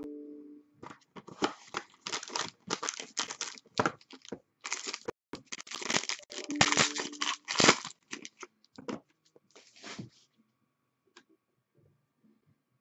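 Wrapping on a trading-card box being torn open and crinkled, in a quick run of tearing strokes that stops about ten seconds in.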